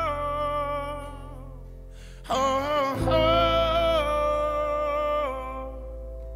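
Live acoustic folk-rock band with banjo, acoustic guitar, upright bass and keyboard playing slow held chords, with wordless singing over them. The first chord dies away, then a new chord is struck a little over two seconds in and rings on, fading slowly.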